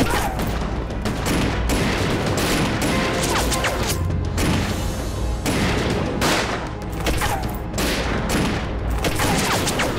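Battle gunfire: a sustained fusillade of many rifle shots, close together and overlapping, with no let-up.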